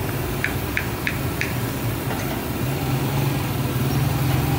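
Steady hiss of pakoras frying in a large karahi of hot oil, over the low hum of an engine idling close by. Four quick, light clinks come in a row about half a second in.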